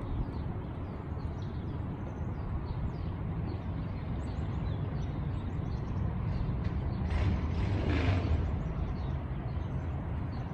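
Outdoor ambience: a steady low rumble with small birds chirping throughout, and a brief louder rushing swell about seven to eight seconds in.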